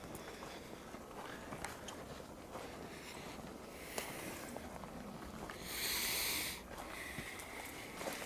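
Quiet outdoor night background with faint scattered ticks and rustles, and a short, loud hiss close to the microphone about six seconds in, lasting under a second.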